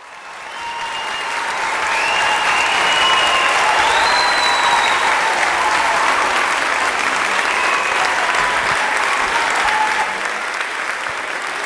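A large theatre audience applauding, the clapping fading in over the first two seconds and easing slightly about ten seconds in.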